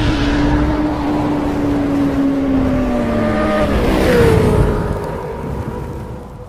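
Yamaha MT-15's single-cylinder engine running through an Akrapovic full-system exhaust. Its note sinks slowly, jumps higher about four seconds in, then holds and fades away near the end.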